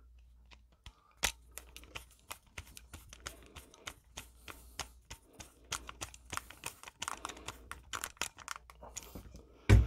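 A screwdriver turning and tightening the brass terminal screw of a light switch: a run of small, irregular metal clicks and scrapes, with a sharper click about a second in and a louder thump right at the end.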